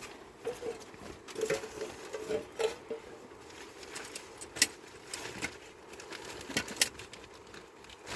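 People starting to eat: scattered light taps and clicks of spoons and dishes, with two sharper clinks near the middle and later on.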